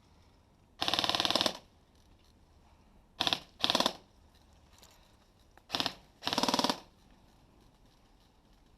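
Airsoft gun firing on full auto: five short bursts of rapid shots over about six seconds, the first and last the longest.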